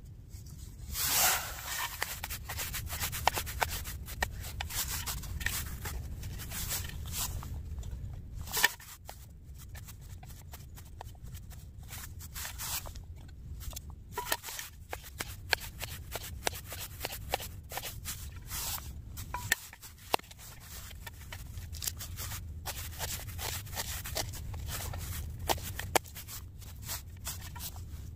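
Knife cutting up food, an irregular run of short slicing strokes and scrapes, over a steady low rumble.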